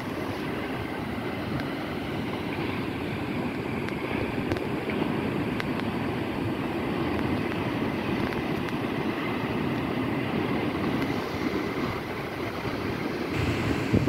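Atlantic Ocean waves breaking and washing in a steady rush that swells a little midway, with a gust of wind buffeting the microphone near the end.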